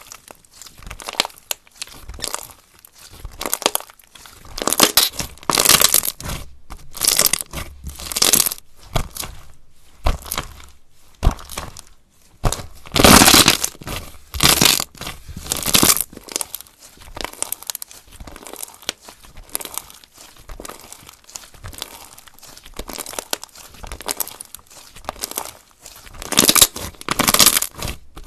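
Slime being kneaded, stretched and squished by hand, giving irregular bursts of sticky crackling, one after another, the loudest about thirteen seconds in.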